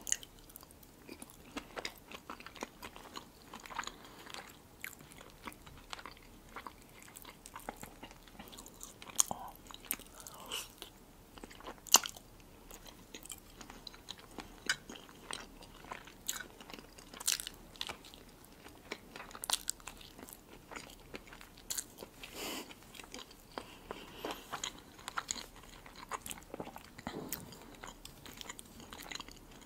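Close-miked eating sounds: soft chewing and wet mouth clicks from a mouthful of soft, dressed holiday salad such as herring under a fur coat, in a steady patter of short snaps. Now and then a metal fork clicks and scrapes on the plate, and the sharpest click comes about a third of the way in.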